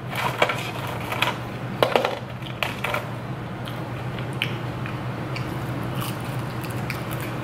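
A person chewing and biting fried food close to the microphone: irregular crunches and wet mouth clicks, most in the first three seconds, over a steady low hum.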